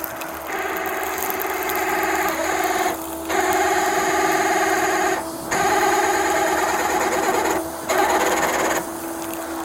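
Tow truck winch pulling in its line under load, dragging a stuck vehicle: a grinding mechanical strain in four long spells with short breaks between, over a steady hum.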